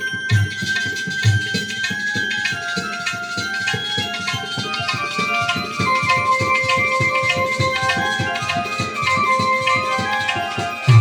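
Instrumental passage of Gujarati devotional bhajan music: quick hand-drum strokes under a melody of held notes that step from pitch to pitch.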